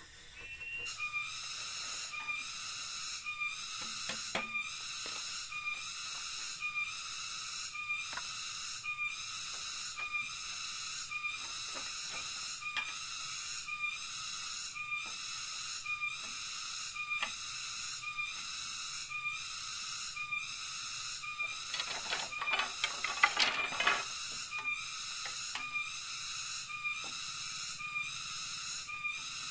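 Cicadas calling in a loud, high-pitched rhythmic pulse, about one and a half pulses a second. A short burst of knocking and clattering comes about three-quarters of the way through.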